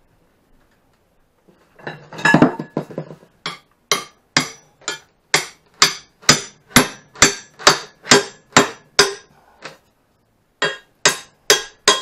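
Claw hammer striking square steel tubing, driving a smaller tube section into a larger one. After a brief clatter, a steady run of sharp, ringing metal-on-metal blows comes at about two to three a second, then a short pause and a few more blows near the end.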